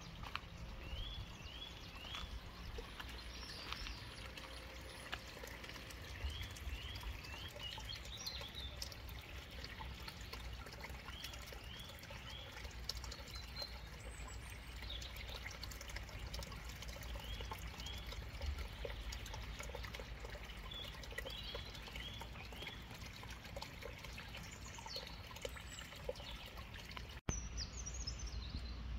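A small woodland stream trickling and running steadily, while a bird repeatedly sings a short phrase of three or four quick rising notes every few seconds.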